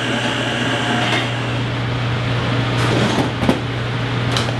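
Countertop blender running steadily, pureeing cooked summer squash while grapeseed oil is poured in, with a few knocks near the end as the jar is handled.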